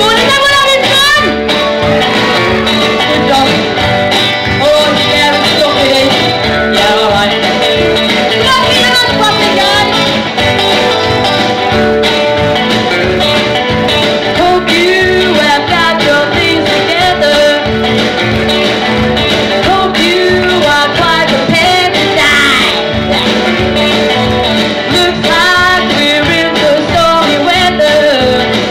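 A woman singing into a microphone over instrumental accompaniment, a continuous song.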